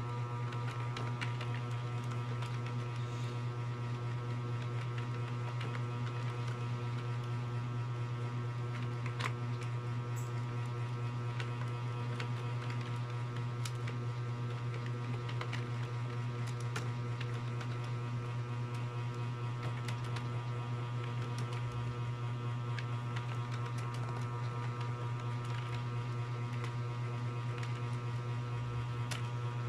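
A steady low electrical hum dominates. Faint, irregular key clicks from typing run through it.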